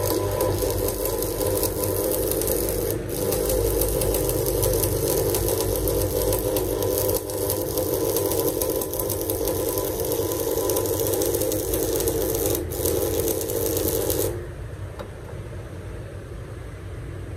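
Welding arc of a Red Go 120 AC transformer stick welder burning a 3.2 mm electrode at a little over 100 A: a loud, steady crackling sizzle with a buzz in it. It breaks off for an instant twice, then stops about fourteen seconds in, leaving a lower steady hum.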